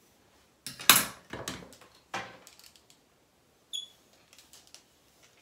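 Handling noises from hair styling with a curling iron: two loud rustling knocks about one and two seconds in, a short metallic click a little after halfway, then a few faint ticks.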